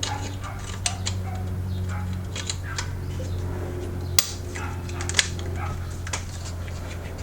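Hand tools and metal parts clicking and clinking during work on an engine's alternator wiring, with two sharper metallic clinks about four and five seconds in, over a steady low hum.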